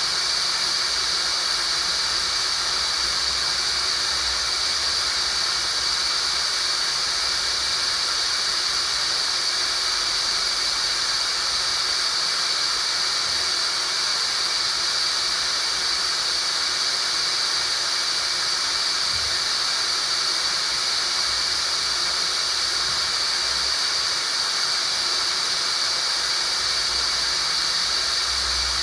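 Tinnitus relief sound-therapy signal: a steady, synthetic high-pitched hiss, loudest in one narrow high band, with almost no low end.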